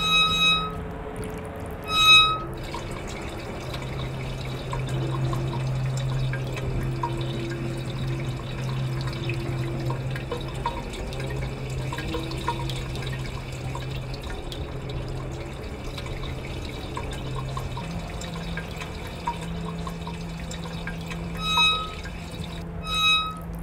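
Sound effects for a water tap being worked. Two short bright beeps about two seconds apart sound as the tap is pressed, then a low steady hum with light drips and trickling water, and two more beeps near the end.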